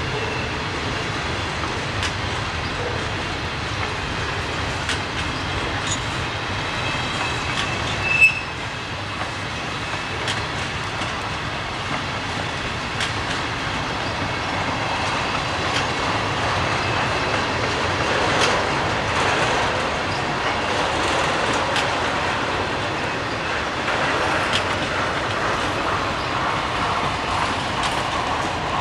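Freight cars of a long, slow freight train rolling past: steel wheels clicking over rail joints, with wheel squeal as the train snakes through the junction. A single sharp clank about eight seconds in.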